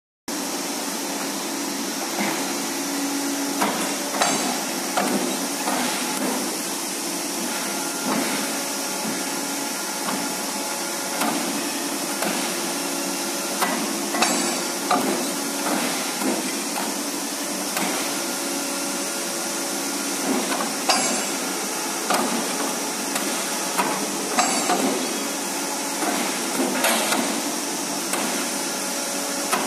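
Hydraulic CNC mandrel tube bender running through a multi-bend cycle on a tube: a steady hum from its hydraulic drive, with sharp metallic clanks and knocks every second or two as the clamps, bend die and carriage move.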